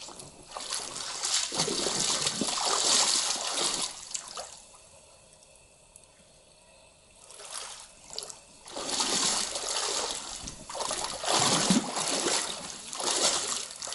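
Stand-up paddle pulling through the water, splashing and trickling in two stretches with a quieter lull of a few seconds in the middle.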